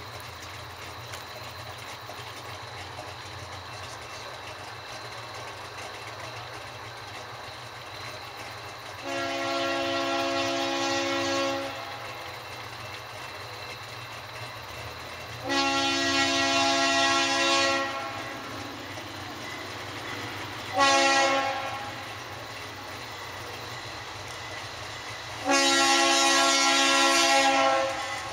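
A train horn sounds a chord of several tones in the long-long-short-long pattern, the standard signal for a grade crossing, as the train approaches. A steady low rumble from the approaching train runs underneath.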